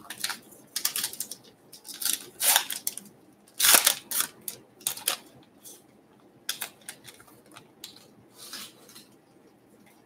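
Baseball card pack being torn open and cards handled: a series of short crinkling, rustling bursts, the loudest about four seconds in.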